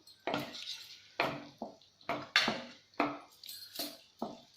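A metal spoon clinking and knocking against a cooking pan in repeated strokes, about two a second, while stirring a cornflour-thickened gravy.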